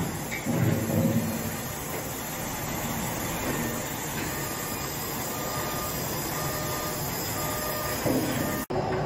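Semi-gantry crane hoist running steadily as it lifts a steel soil bucket on its wire ropes, a continuous mechanical noise with faint whining tones.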